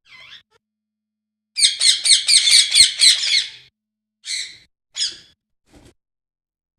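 Pet parrot squawking: a rapid run of harsh, high calls, about five a second for two seconds, then two single squawks.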